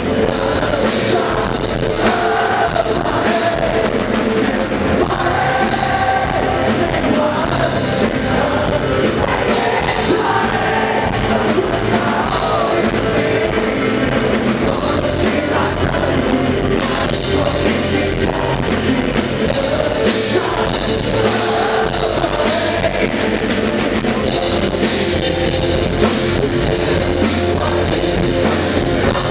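Live rock band playing loudly: a male singer over electric guitars and a drum kit.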